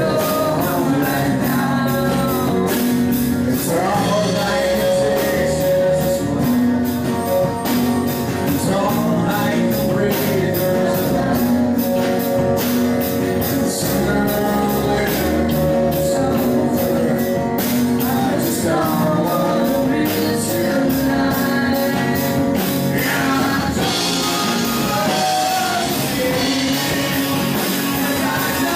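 A rock band playing live: a man singing into a microphone over a drum kit, with a steady beat of cymbal strokes.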